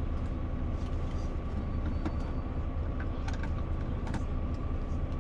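Coach bus idling, heard inside the passenger cabin as a steady low hum with a faint steady higher tone, and scattered light clicks and taps.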